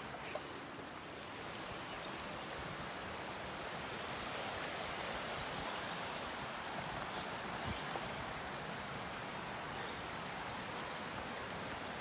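Steady rushing of a forest stream, with a few faint, short, high bird chirps scattered through it.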